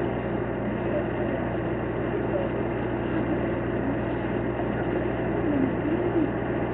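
Steady low hum of idling engines, with faint distant voices wavering through it.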